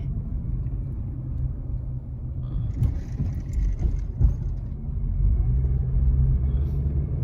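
Steady low rumble of a car on the move, engine hum and road noise, with a brief hiss about three seconds in and a single knock a little after four seconds.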